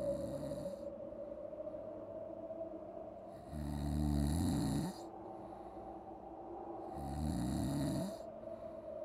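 Snoring sound effect: three long snores about three and a half seconds apart, the second and third loudest, over a steady hum.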